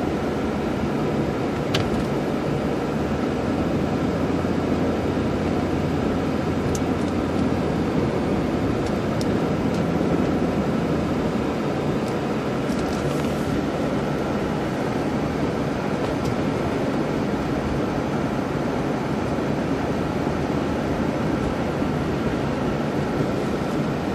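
Steady cabin noise from inside a car being driven: tyre and road noise with the engine running underneath, at an even level, and a few faint clicks.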